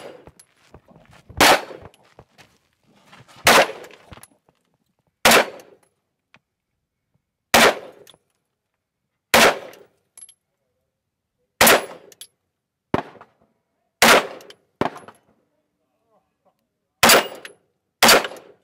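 FK BRNO PSD pistol firing 7.5 FK rounds: nine single shots of slow, aimed fire, mostly about two seconds apart, with the last two closer together. A few much fainter knocks fall between some of the shots.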